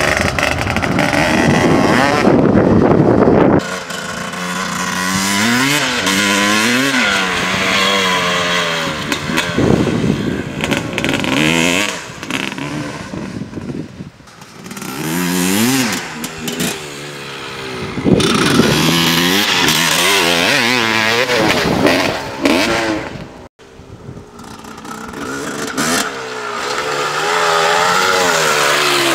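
Honda CR250's single-cylinder two-stroke engine revving hard under the rider, its pitch climbing and falling again and again between full-throttle stretches. There is a brief sudden break about three quarters of the way through.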